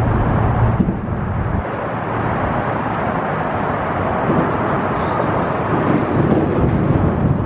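Steady engine rumble with a broad noisy wash, a low hum that is stronger for the first second and a half and then eases off.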